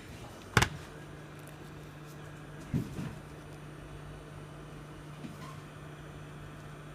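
A sharp click, then a steady low electrical hum starts and keeps going, with two soft knocks about three seconds in and a faint tick later.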